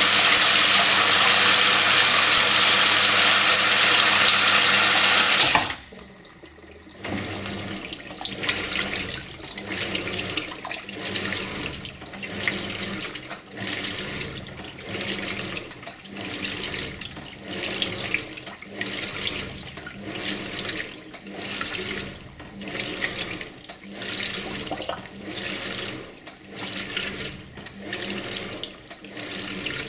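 Simpson Esprit 550 top-load washer: water rushes steadily into the tub and stops abruptly about six seconds in. After that comes a rhythmic swish of water about once a second, as the agitator works the load.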